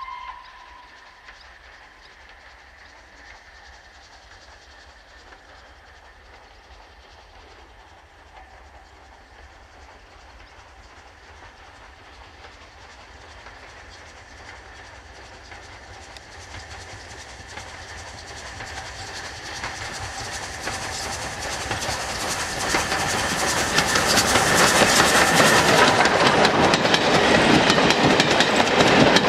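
GNR N2 class 0-6-2 tank locomotive No. 1744 and its coaches approaching, growing steadily louder for about twenty seconds, then passing close by from a little past twenty seconds in, with the wheels clattering over the rail joints.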